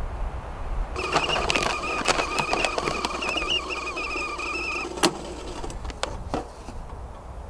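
A small electric motor whirring for about four seconds with a slightly wavering whine, with clicks mixed in. It stops with a sharp click, and a few lighter clicks follow.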